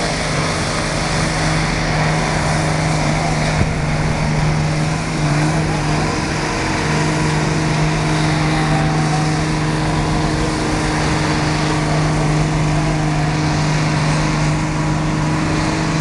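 Dodge Ram's Cummins diesel engine held at steady high revs under heavy load while pulling a 7,500 lb weight-transfer sled. The pitch stays almost constant, with a brief wobble about five seconds in.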